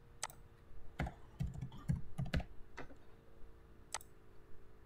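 Computer keyboard keystrokes: about ten short, irregular taps and clicks as a dollar amount is typed in, over a faint low steady hum.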